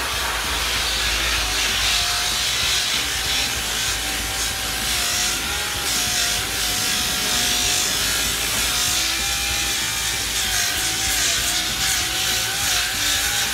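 Angle grinder running steadily under load, grinding built-up crud off the inside of a car's rear wheel well. Its whine wavers slightly in pitch as the disc is worked against the surface, over a constant gritty hiss.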